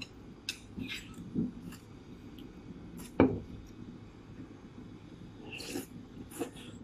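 Metal spoons clinking and scraping against bowls during a meal, in scattered light clicks, with one much louder knock a little over three seconds in.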